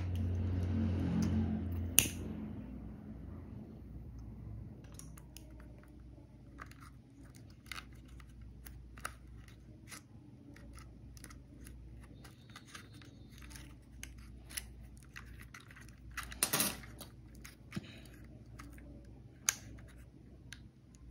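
Scattered small clicks and rattles of plastic drone-arm parts and a motor being handled and fitted together, with a short louder clatter near the end. A rushing noise with a low hum opens the stretch and stops about two seconds in with a sharp click.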